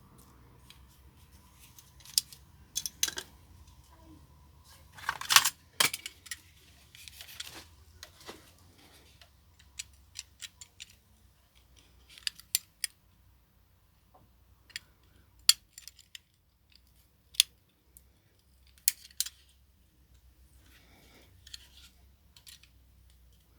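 Small plastic and metal parts of a car central-locking limit switch being handled and worked with a hand tool: scattered sharp clicks and short scrapes. The loudest is a cluster of scraping and clicking about five seconds in.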